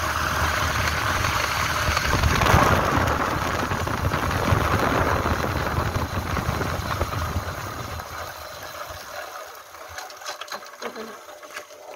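A vehicle's engine running with heavy wind rush on the microphone while driving along the road. The noise dies down about eight seconds in, leaving only faint scattered clicks.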